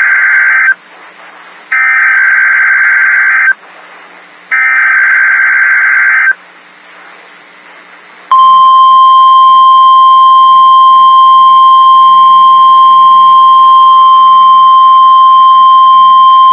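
Emergency Alert System alert for a tornado watch. Three bursts of warbling, screeching digital header data, each just under two seconds long and about a second apart, the first already under way. After a short pause, a single loud steady attention tone near 1 kHz, the NOAA Weather Radio alert tone, starts about eight seconds in.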